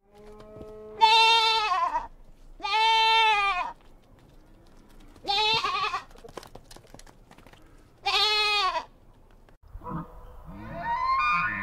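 A farm animal making four loud, high, wavering bleat-like cries, each about a second long, with pauses between them. Near the end a different pitched sound rises in.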